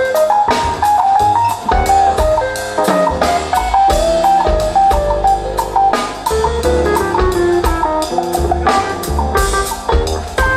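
A band playing an instrumental piece: drum kit keeping a steady beat under a bass line and a bright melody of quick, separate notes.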